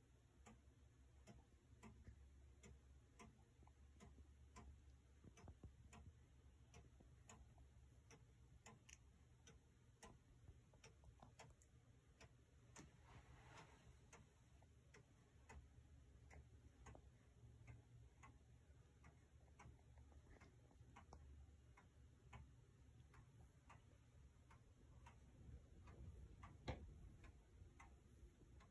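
Howard Miller Earnest pendulum wall clock's movement ticking faintly and evenly, about two ticks a second, with one louder knock near the end.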